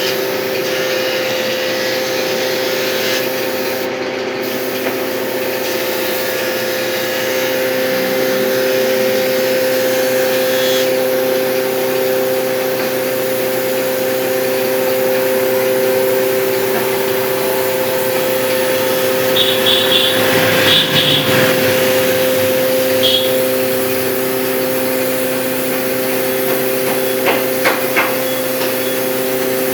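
An electric power tool's motor running steadily with a hiss over it, working on wood, with a brief change in tone about two-thirds of the way through and a few sharp clicks near the end.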